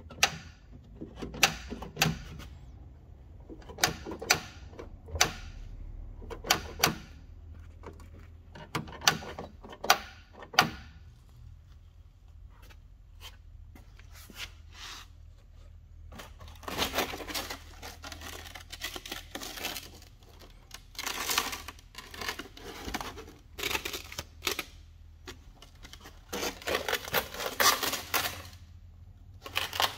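Sharp clicks and knocks, a few seconds apart, then from about halfway on dense bursts of rattling and scraping: hand tools and loose metal and plastic parts being worked during the stripping of a car's interior.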